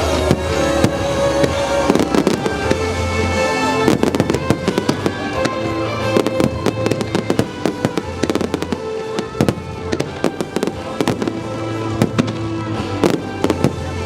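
Fireworks bursting and crackling in quick succession, many sharp bangs and pops throughout, over loud music playing.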